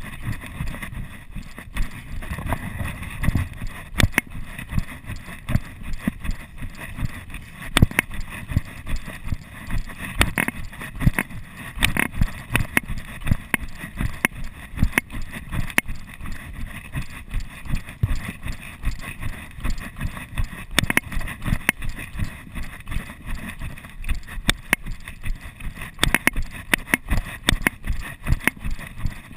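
Footfalls of a person running or hiking fast down a dirt trail, picked up through a chest-mounted GoPro Hero 2 that jostles with each step: quick, uneven thuds and clicks, a few a second, over a low rumble.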